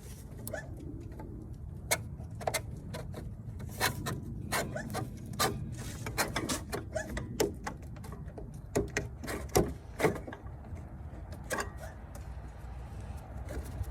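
Irregular light clicks and taps of small metal and plastic parts being worked by hand as a new thermostat's spring and lock-in clip are fitted into the housing, over a steady low hum.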